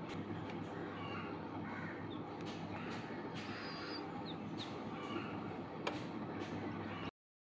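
A few short, high, falling peeps from a newly hatched chick, scattered through the middle, over the steady low hum of the egg incubator.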